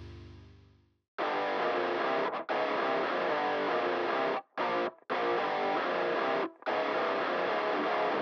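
Background music: a low tone fades out in the first second, then after a brief silence a guitar-led track starts, stopping for a split second a few times.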